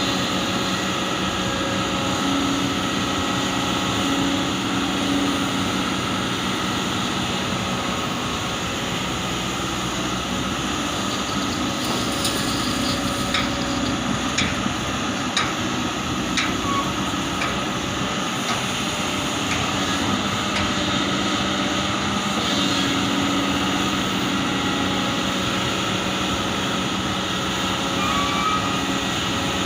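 Heavy diesel machinery running steadily with a constant low hum: a Kobelco excavator working at a truck. About halfway through comes a run of half a dozen sharp clicks or clanks, about one a second.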